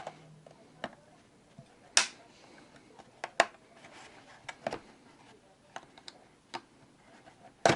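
Scattered clicks and taps of a plastic blood pressure monitor case being pried at with a scalpel to free its snap latches. The sharpest clicks come about two seconds in and near the end.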